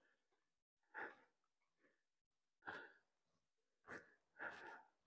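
Near silence broken by a few faint breaths of a hiker climbing a short slope, spaced a second or more apart.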